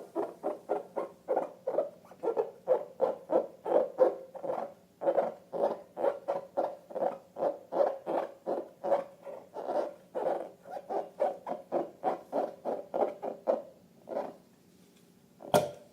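Slime being squeezed by hand in quick, even squelches, about three a second, stopping shortly before the end; one sharp click follows near the end.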